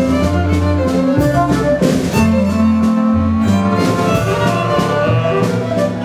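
A small live band playing a dance tune: a violin leads, with a clarinet and a double bass, over a steady beat.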